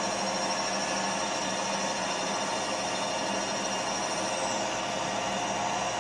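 Milling machine running steadily: an even motor and spindle hum with several steady whines, one high whine gliding down a little after the fourth second.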